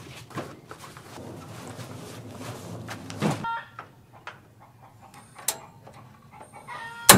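Rustling of a heavy fabric cover being pulled off outdoor cooking gear, then a few sharp knocks and clanks as a pot and bucket are handled, the loudest a sharp click with a brief ring near the end.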